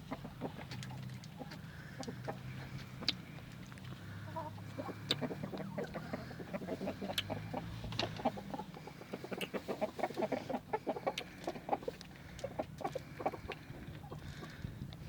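Chickens clucking softly, a string of short clucks that grows busier from about nine seconds in.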